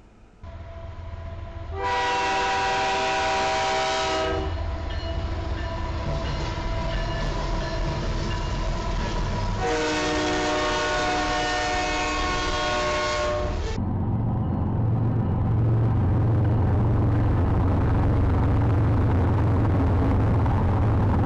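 Diesel freight locomotives passing: a horn sounds twice, several tones at once held for a few seconds each, about two seconds in and again about ten seconds in, over the rumble of the train. From about fourteen seconds a louder, deep diesel engine rumble as locomotives pass close by.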